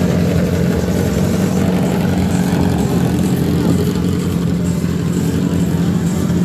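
Motorcycle engines running, a loud, steady low drone with no let-up.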